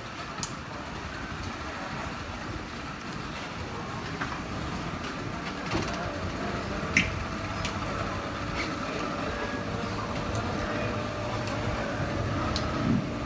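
Speedboat outboard motors running at low speed as the boat manoeuvres away from the jetty: a steady engine rumble that grows a little louder in the second half, with a few sharp knocks scattered through it.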